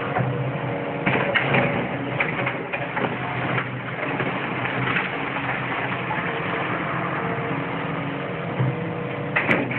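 Hydraulic excavator's diesel engine running steadily while its bucket tears into a brick building, with crunching and clattering of falling rubble, loudest about a second in and again near the end.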